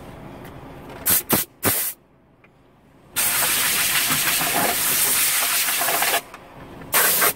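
Compressed-air blow gun in a truck cab hissing: a few short blasts about a second in, then a steady blast for about three seconds and one more short blast near the end, blowing dirt off the cab floor.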